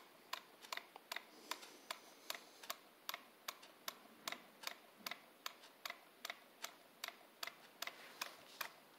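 Home-made solenoid engine running slowly on 120 V DC, ticking like a clock with light, even clicks about two to three times a second. Each click is the solenoid firing as the rocker closes its contact tab.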